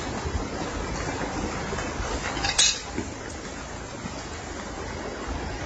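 Small portable core drilling rig running steadily as it drills into rock, with one sharp knock about two and a half seconds in.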